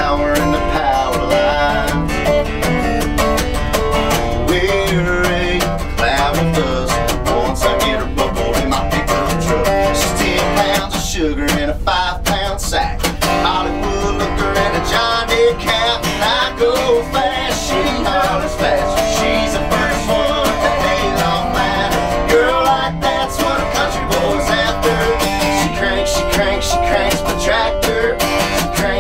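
A country song played live on a strummed acoustic guitar and a fingerpicked resonator guitar, with a man singing over them.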